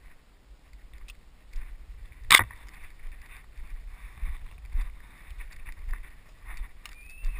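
Hurried footsteps crunching and rustling through dry scrub and leaf litter, with a single sharp crack about two seconds in that is the loudest sound.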